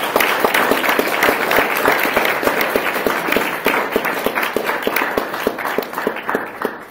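Audience applauding, many hands clapping densely, tapering off near the end.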